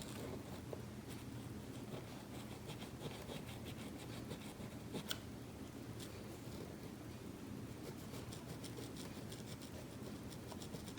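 Faint scratching and rustling on paper as an origami dog face is worked by hand, with one sharper crackle about five seconds in.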